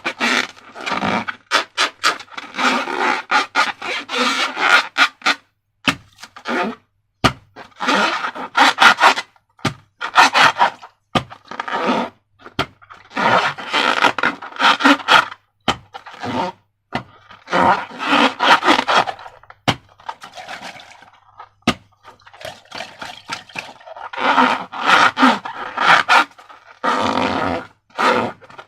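Slime and rubber balloons being handled and squeezed: irregular bursts of scraping and rubbing with many sharp sticky clicks, broken by short pauses.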